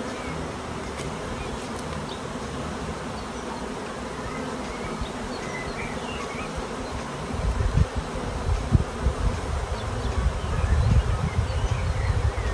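Swarm of honeybees clustered on a man's face and chest as a bee beard, buzzing steadily. About halfway through, loud irregular low rumbling joins in and becomes the loudest sound.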